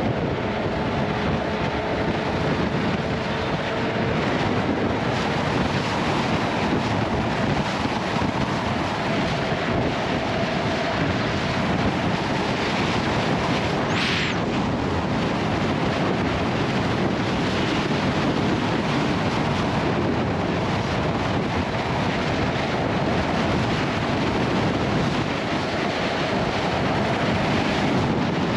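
Steady wind rush over an unshielded GoPro media-mount microphone on a 2021 Yamaha XSR900 at highway speed, with the motorcycle's engine and road noise underneath. A brief high-pitched sound cuts through about halfway through.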